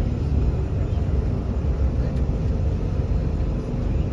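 Steady low rumble of an Airbus A380 airliner's engines and airflow.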